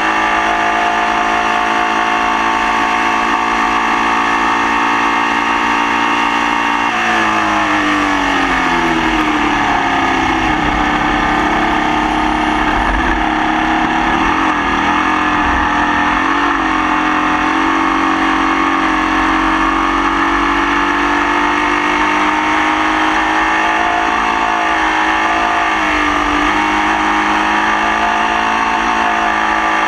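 Formula Vee race car's engine running hard at high revs. About seven seconds in, the revs fall steeply, then build slowly again and hold. The engine has a misfire.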